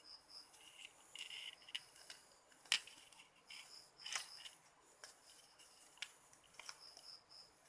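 Scattered sharp clicks and snips of small hand tools at work, two of them louder than the rest, with a faint high insect chirp pulsing in short runs behind them.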